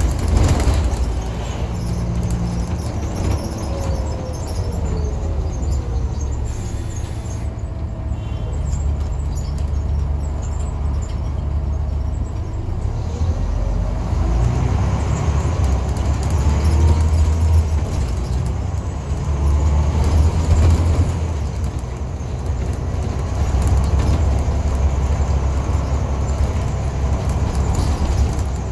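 Scania N94UB single-deck bus heard from inside the passenger saloon: its nine-litre five-cylinder diesel and drivetrain run under way with a steady low rumble. A transmission whine rises in pitch several times as the bus pulls away and accelerates. There is a sharp knock right at the start.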